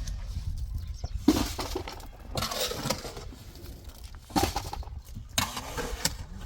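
Several rough scraping and clinking strokes in a row, over a steady low rumble.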